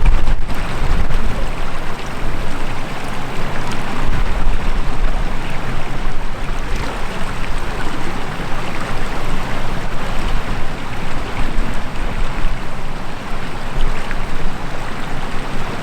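River rushing steadily past, a constant loud wash of water noise.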